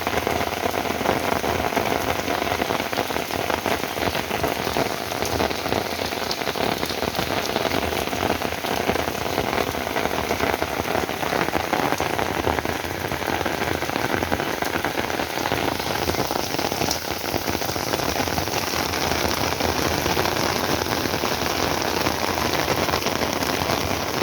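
Heavy rain pouring down steadily, a dense even hiss of drops hitting the ground and surfaces.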